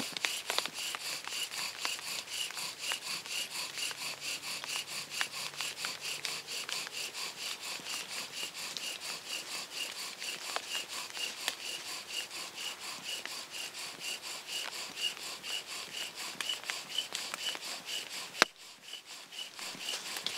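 Bow drill in use: a balsam fir spindle spun by the bow in a balsam fir hearth board, in a steady back-and-forth rhythm of rubbing strokes with a high squeak on each one. The hearth is smoking as the friction builds an ember. A sharp click comes near the end, and the strokes stop.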